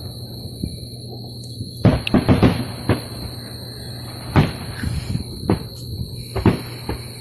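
Sharp bangs at irregular intervals: a quick cluster of four or five about two seconds in, then single bangs about once a second. A steady high whine and a low hum run underneath.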